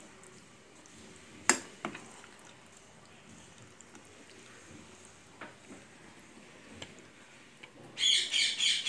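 A steel spoon stirring and scooping thick chickpea gravy in a metal kadai, with soft wet squelches and a sharp clink against the pan about one and a half seconds in, and a few lighter taps later. Near the end, a bird chirps rapidly several times.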